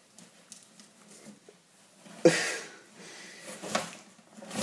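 A small white dog moving about inside a large cardboard box, making a few short rustles and snuffles against the cardboard. The loudest comes about halfway through, and another at the very end.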